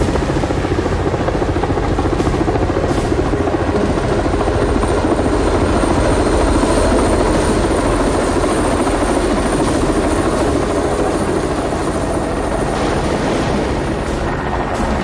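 Sikorsky SH-3 Sea King helicopter hovering low, its rotors and turbine engines running loud and steady, with a thin high whine above the rotor noise.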